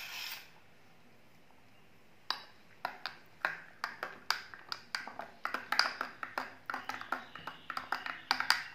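A metal spoon stirring hot chocolate milk in a glass mason-jar mug, clinking against the glass about twice a second, starting about two seconds in.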